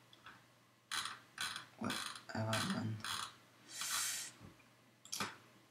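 A computer mouse's scroll wheel clicking in several short runs as it is rolled back and forth.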